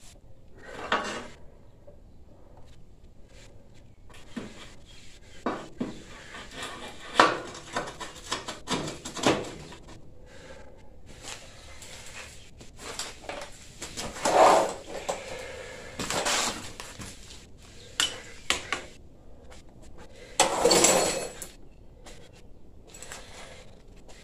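Steel steering parts being handled and fitted on a mower frame: irregular metal clanks, clinks and knocks, with a few louder, longer scrapes spread through.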